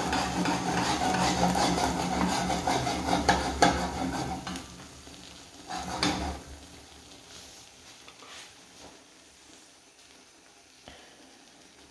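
Eggs and tomato slices frying in a pan, sizzling, with scraping and clattering against the pan for the first four seconds or so. After that it drops to a quieter sizzle, broken by one more short clatter around six seconds.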